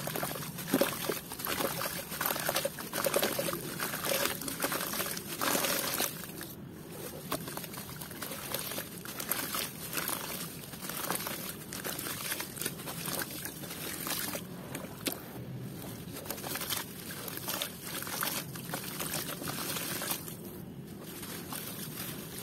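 Hands squeezing and crumbling a wet block of red dirt over a basin of muddy water: irregular wet crumbling with sloshing and trickling water, louder for the first six seconds or so, then softer.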